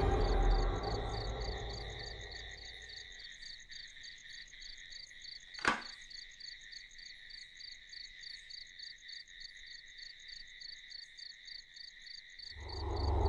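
Crickets chirping in an even, steady pulse, with a low boom fading away over the first few seconds. There is a single sharp knock about six seconds in, and a low rumbling music swell rises near the end.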